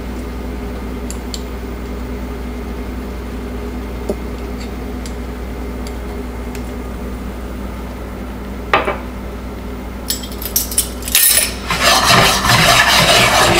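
A small spoon clicks now and then against a glass caper jar as capers go into a stainless steel skillet, over a steady background hum. Near the end the skillet is shaken and scraped on the gas burner grate, and the lemon-butter sauce in it sizzles loudly.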